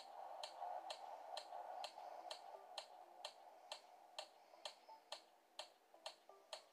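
Quiet clock-like ticking, evenly spaced at about two ticks a second, with faint held notes underneath, as in a soft background music track.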